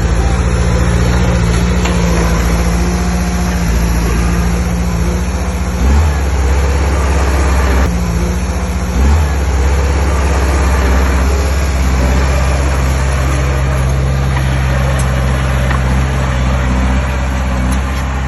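Heavy diesel engine of earthmoving machinery running steadily, with two brief thumps about six and nine seconds in.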